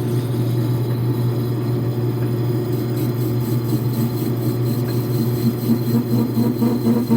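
Logan metal lathe running steadily while a parting tool, its blade extended, cuts into the turning workpiece. Near the end a pulsing tone comes in over the machine's hum.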